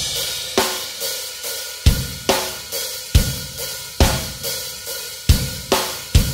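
Background music: a drum-kit intro of separate kick-drum and cymbal hits, about one every half second to a second, each cymbal left ringing.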